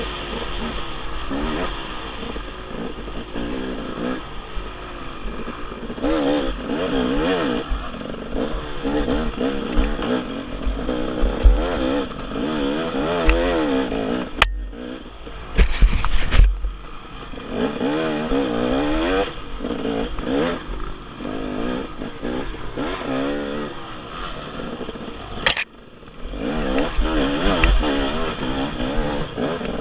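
Dirt bike engine revving up and down as it is ridden hard over rough trail, its pitch rising and falling constantly. The throttle drops off abruptly about halfway through, with a few heavy knocks just after, and again briefly near the end.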